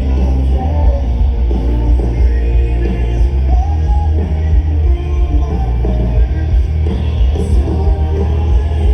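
Rock band playing live, with singing over the band; the low end is heavy and boomy.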